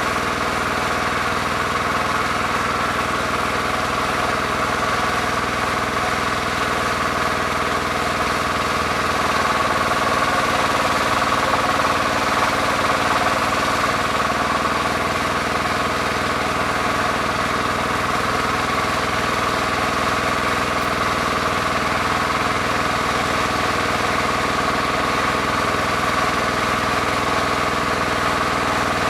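Bulldozer's diesel engine running steadily, growing a little louder for a few seconds about a third of the way in.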